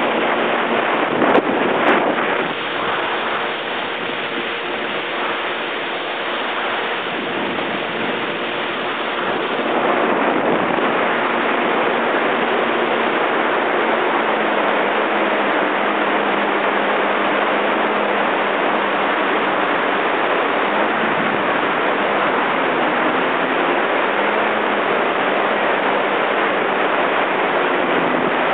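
Yamaha jet ski engine running at speed with a steady hum, under heavy wind noise on the microphone and rushing water. Two sharp knocks come near the start, and the noise gets louder about a third of the way in and stays there.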